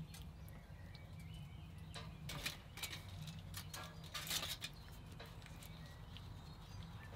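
Quiet room with a steady low hum, a few soft rustles of a flour tortilla being folded on crinkly aluminium foil, and faint bird chirps.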